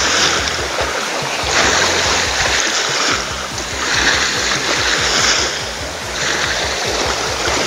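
Small waves washing and splashing against a rocky seashore, the rush of water swelling and fading every couple of seconds.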